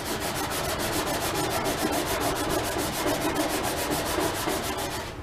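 White scrub pad scrubbed fast back and forth over the greasy metal inside of a gas grill, an even rasping rub of several strokes a second, lifting baked-on food grime loosened by cleaner. It stops near the end.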